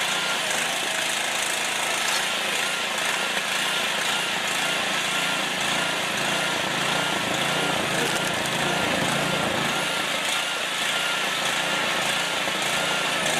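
Engine-driven firewood cutting machine running steadily with an even, unbroken mechanical noise.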